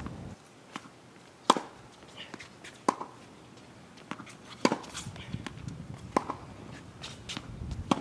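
Tennis ball struck by a racket and bouncing on a hard court: a series of sharp pops about a second or so apart, the loudest about a second and a half in.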